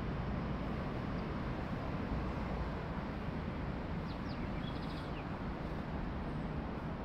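City street ambience: a steady low rumble of road traffic, with a brief run of bird chirps about four seconds in.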